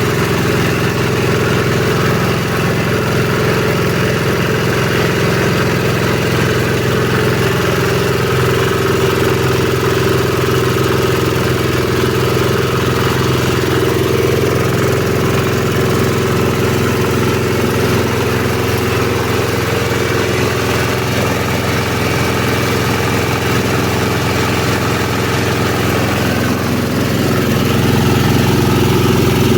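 Engine-driven chopper-grinder for manure and compost running steadily, fitted with a 4 mm screen. It grows a little louder near the end.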